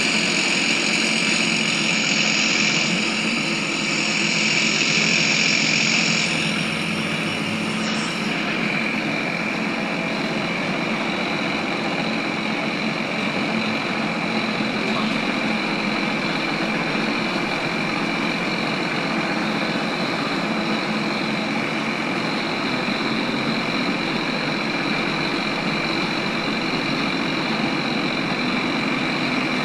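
Cabin noise inside a ZiU-682G trolleybus: the steady hum and whine of its electric drive and running gear with road noise. Some extra high-pitched tones drop away about six to eight seconds in.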